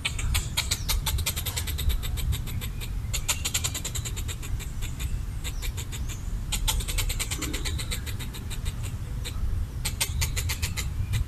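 Red squirrel chattering: rapid runs of sharp clicking notes in several bouts of a few seconds each, with short breaks between them. This is its territorial alarm chatter, used to scare off a perceived threat. A steady low rumble runs underneath.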